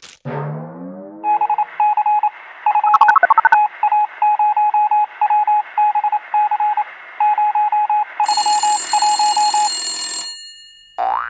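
Electronic beep tone keyed on and off in short, irregular Morse-like groups over a steady hiss, with a brief cluster of mixed tones about three seconds in; high steady tones join near the end, and the beeps and hiss cut off suddenly about ten seconds in.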